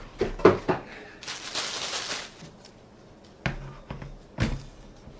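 Handling sounds of unpacking: a couple of knocks, about a second of rustling, then two knocks as the Fellow Stagg EKG gooseneck kettle is set down onto its heating base.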